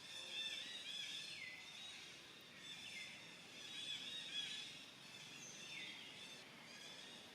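High-pitched animal calls over faint outdoor background noise: repeated chirping cries, three of which slide down in pitch.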